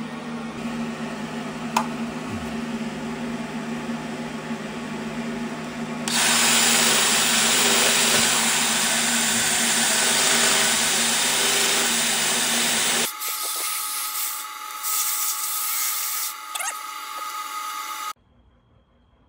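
Rotary grinder with a long-shank abrasive stone working the cast-iron port of a flathead engine block. It runs steadily, turns louder and harsher about six seconds in as the stone bites into the iron, changes to a thinner, higher whine around thirteen seconds, and stops shortly before the end.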